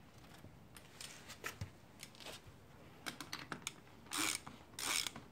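Hand ratchet with a socket on the big nut of a roll-center adjuster: light metal clicks as the socket is handled and fitted, then two ratcheting strokes near the end as the nut is run down.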